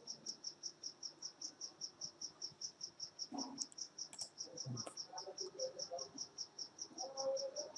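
A steady, even, high-pitched chirping, about five or six pulses a second, with a couple of faint clicks about four to five seconds in.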